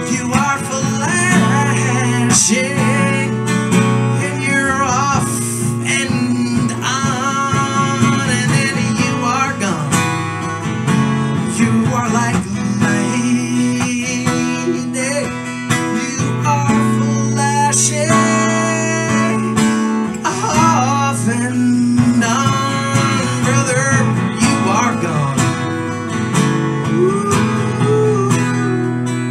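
Steel-string acoustic guitar strummed steadily in a live solo performance, with a wordless vocal melody drifting over it.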